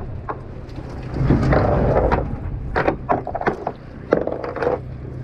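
A fishing boat's engine hums low and steady, while gear knocks and clatters on deck several times.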